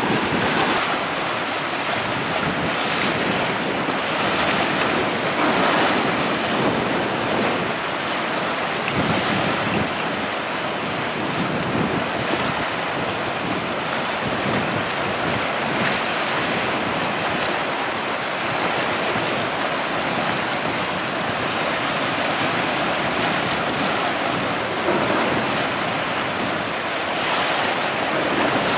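Wind buffeting the microphone over the wash of choppy sea water: a steady rushing that swells and eases every few seconds.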